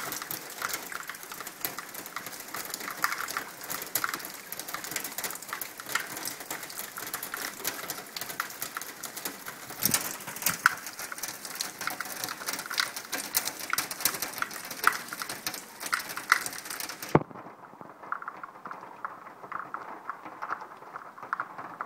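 Rainwater overflowing from a blocked hopper and split downpipe, splashing and spattering down a brick wall as a dense crackle of drops. About 17 seconds in the hiss drops away suddenly, leaving a duller patter.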